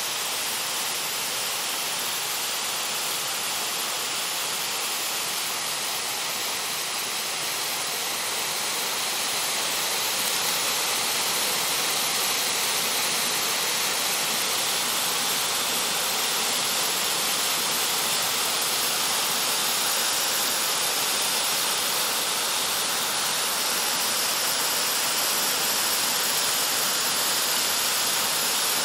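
Water of a small waterfall cascading down steep rock slabs, a steady rushing that grows a little louder about a third of the way through.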